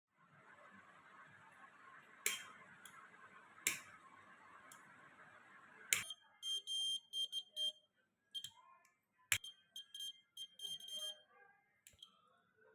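Piezo buzzer of a homemade flame-sensor fire alarm sounding in short, irregular high-pitched beeps that start and stop, beginning about halfway through. Before it, a steady faint hiss with a few sharp clicks.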